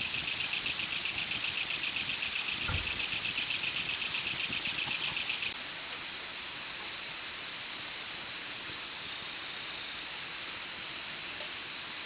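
Night insects calling: one keeps up a steady high-pitched trill, while a second chirps in a fast, even pulse that stops abruptly about halfway through.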